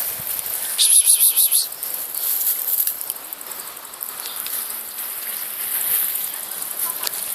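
Insects chirring outdoors: a steady, high, finely pulsing buzz, with a louder pulsing burst about a second in.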